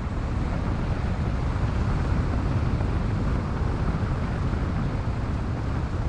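A car driving along at a steady speed: continuous low engine and tyre rumble with some wind noise.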